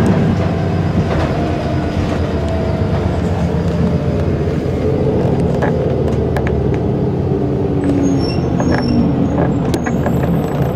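Inside a Scania L94UB single-deck bus on the move: its 9-litre five-cylinder diesel engine and ZF automatic gearbox run steadily, and the whine falls in pitch as the bus slows. A few short rattles and clicks come from the cabin.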